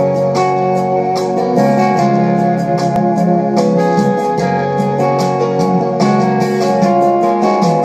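Instrumental passage of a Samoan love song: keyboard and guitar over a steady beat, with no singing yet.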